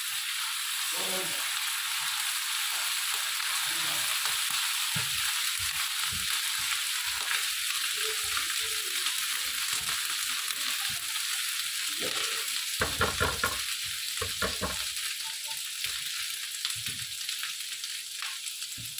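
Chopped onions with garlic and ginger paste sizzling in hot oil on a tawa, while a slotted spatula stirs and scrapes, knocking against the pan. A run of louder spatula strokes comes about two thirds of the way through.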